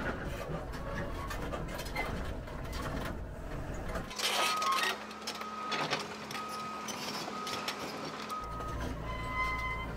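Hitachi excavator's diesel engine running, heard from inside its cab. About four seconds in the engine rumble drops away and an excavator's travel alarm beeps steadily, about three beeps every two seconds; near the end the excavator engine rumble comes back.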